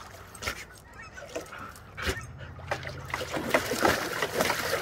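Water splashing and sloshing in a plastic tub as a husky stands in it and churns the water with its legs. It starts as a few scattered splashes and turns into busy, continuous splashing from about two seconds in.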